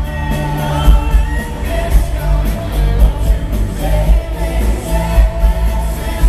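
Live pop-rock band playing at full volume: electric guitars, bass and drums, with a heavy pulsing low beat and a male lead vocal.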